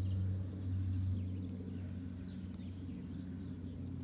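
Small birds chirping in short high calls over a steady low hum.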